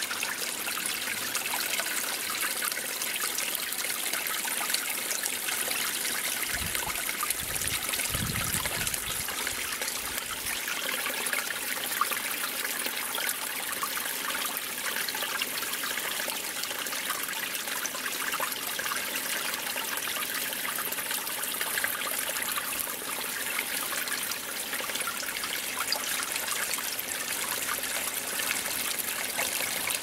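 Spring water gushing out of bedrock and trickling over rocks, a steady, continuous flow. A brief low rumble comes in about six seconds in and fades by about ten seconds.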